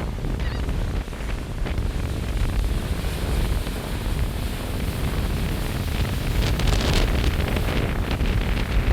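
Storm-force wind buffeting the microphone in a deep rumble, with ocean surf hissing underneath. It grows stronger in the last few seconds.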